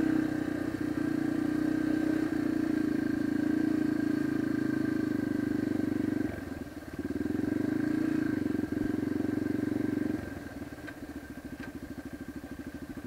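Yamaha dirt bike's engine running steadily under way, backing off briefly about six seconds in, then dropping to a slow, evenly pulsing idle about ten seconds in as the bike rolls to a stop.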